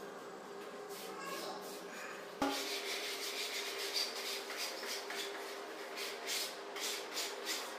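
Fabric wallpaper being rubbed and smoothed onto a wall by hand: a run of short swishing strokes that come thicker and faster after a sharp knock about two and a half seconds in.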